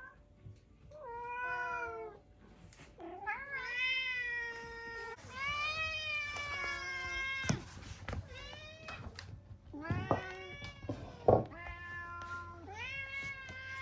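Several domestic cats meowing, a string of long drawn-out meows that rise and fall and sometimes overlap. A few sharp knocks come in among them, the loudest a little before the end.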